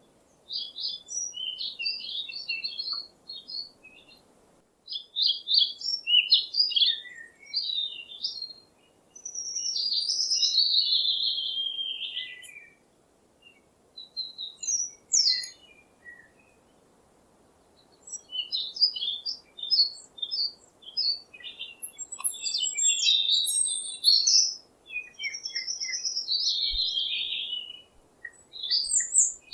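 Songbirds singing: bursts of quick high chirps and warbled phrases, now broken and choppy, now a longer flowing phrase, with pauses of a second or two between them. A faint low steady hiss lies beneath.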